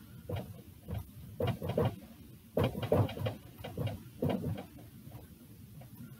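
Dry-erase marker writing on a whiteboard: a run of short, irregular scratchy strokes as a word is written out.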